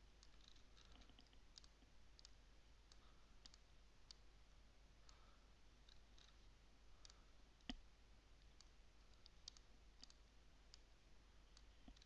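Faint, irregular computer mouse clicks, about a dozen, with one louder click about two-thirds of the way through, over a faint steady low hum.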